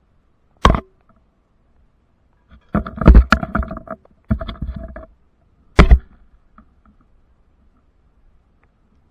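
Metal climbing hardware clanking against the steel of a radio tower, close to the microphone: a sharp clank, two bursts of rattling clatter with a ringing tone, then another sharp clank.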